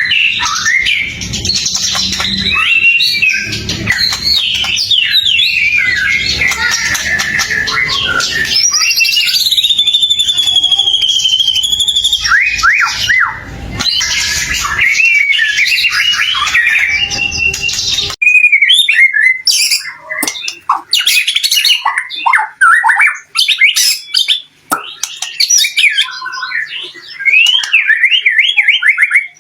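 White-rumped shama singing a fast, varied song of whistles, trills and chattering notes. About 18 seconds in, a low background rumble cuts off abruptly and the song goes on in short, separate phrases.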